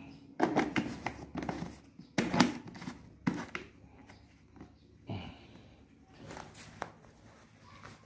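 Scattered knocks and clicks of hands handling a blue plastic electric sprayer tank and working at the cover on its top; no pump motor is running.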